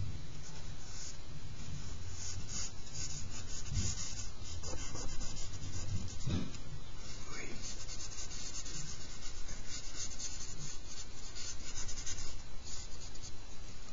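Charcoal stick scratching and rubbing on drawing paper in many short, repeated shading strokes, with a couple of soft bumps partway through.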